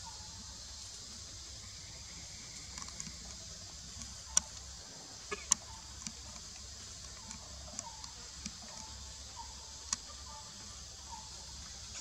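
Outdoor forest ambience: a steady high hiss-like drone under a low rumble, with a few sharp clicks about four and a half and five and a half seconds in and again near ten seconds. Several faint short chirp-like calls come in the second half.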